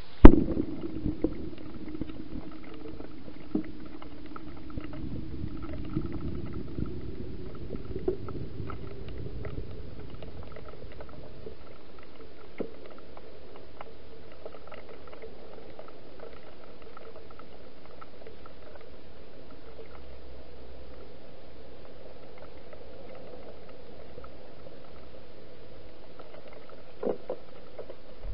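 Steady hiss with a sharp knock just after the start, then a few faint taps and clicks and a low rumble over the first ten seconds or so.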